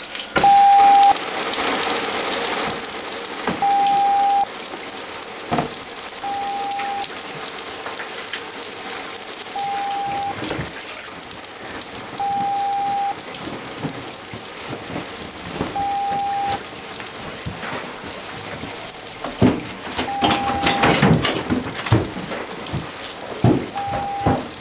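Running shower water hissing steadily, with an electronic alert beep, one steady tone repeating about every three seconds, sounding over it. Near the end come rustles and sharp knocks.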